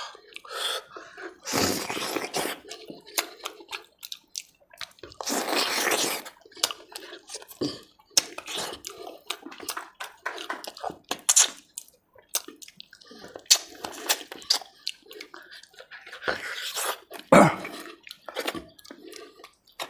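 Close-miked eating sounds of mutton curry eaten by hand: wet chewing and many quick lip smacks, with two longer slurps in the first six seconds and one sharp, loud smack near the end.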